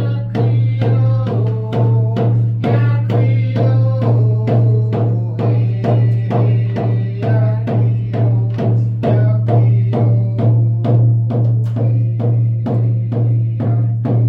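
Music with a steady drum beat of about two strokes a second over a held low drone, with a shifting melody line above.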